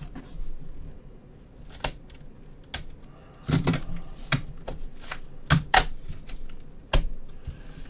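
Hard plastic card slabs and cases clacking against each other as gloved hands sort through a stack of them: a handful of separate sharp clacks, a few seconds apart, with a small cluster about three and a half seconds in.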